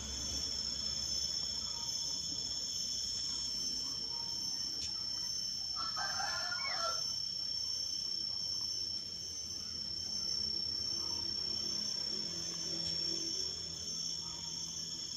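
Steady high-pitched drone of insects, with one short call from domestic fowl about six seconds in.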